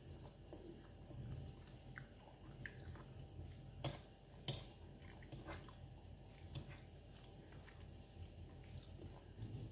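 A person chewing mango and puto maya (sticky rice cake), quiet mouth sounds throughout. Two sharp clicks of a fork against the plate come about four seconds in, half a second apart.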